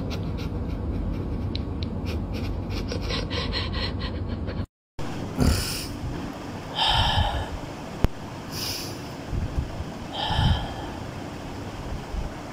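A cat snoring: four loud snoring breaths about a second and a half apart. Before them, for the first few seconds, a steady noise with faint clicks that cuts off suddenly.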